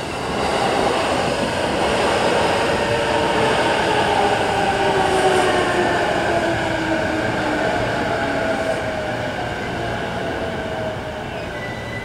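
A Nambu Line electric commuter train runs past over a level crossing, its wheel-and-rail rumble swelling up and then easing off. Over it the train's electric motors whine in several tones that fall slowly in pitch as it goes by.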